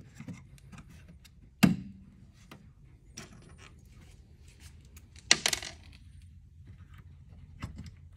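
Small metallic clicks and taps of a clevis pin and cotter pin being handled and fitted into a bed actuator's metal mounting bracket, with two sharp metal clacks standing out, one about a second and a half in and one just past five seconds in.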